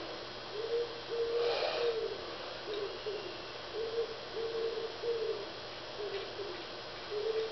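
A pigeon cooing: a repeated phrase of low, even notes, one after another. A short rustling noise about one and a half seconds in.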